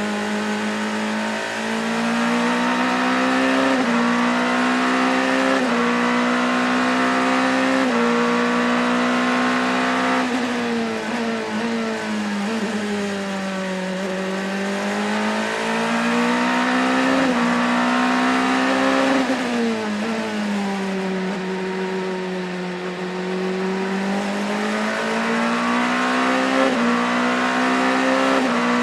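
Onboard sound of an LMP2 prototype's Gibson 4.2-litre V8 racing engine under full load, the pitch climbing through quick upshifts every two seconds or so early on. Revs then sink into two long dips for corners, with a sharp blip about 19 seconds in, and climb through upshifts again near the end.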